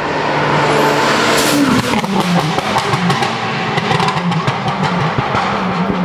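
Race car engine at high revs passing by on a hill-climb course. Its pitch rises and drops with gear changes, and from about two seconds in there is a rapid crackle of sharp pops.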